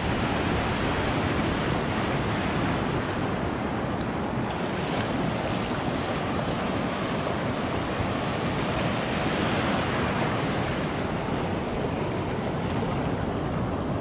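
Ocean surf washing in and out over shallow sand, steady throughout, with wind buffeting the microphone.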